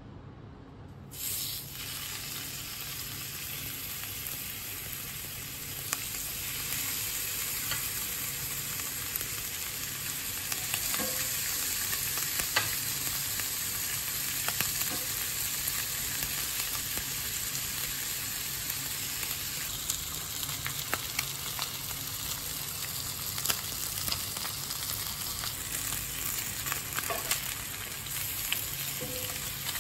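Lamb cutlets sizzling in hot oil in a cast-iron skillet; the sizzle starts suddenly about a second in as the meat goes into the oil, and runs on as a steady hiss with scattered pops and crackles.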